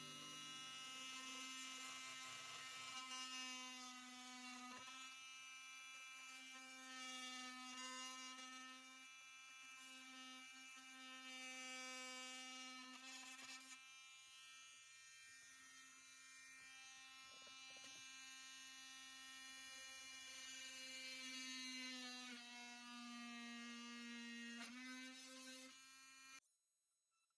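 A small electric motor running with a steady, fairly high-pitched buzzing hum, its pitch dipping briefly a few times, then stopping abruptly near the end.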